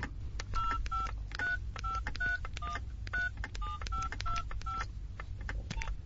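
Telephone keypad dialing a mobile number: about eleven short touch-tone (DTMF) beeps, each a two-note tone, keyed at an uneven pace of roughly two a second, with faint clicks of the buttons.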